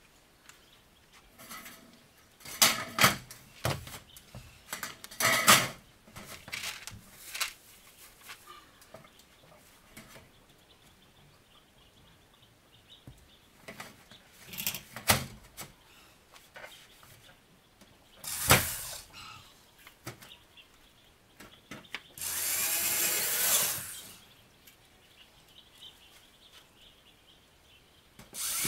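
Cordless drill-driver working at a corrugated sheet-metal wall: several short bursts and sharp knocks, then one longer run of about two seconds near the end, its pitch shifting as it runs.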